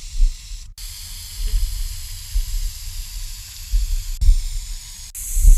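Aerosol spray-paint can hissing steadily as touch-up paint is sprayed. The hiss breaks off for an instant three times: about three-quarters of a second in, about four seconds in, and near the end.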